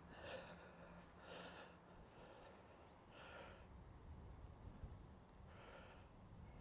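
Near silence, with faint soft hisses about every two seconds and two tiny ticks near the middle.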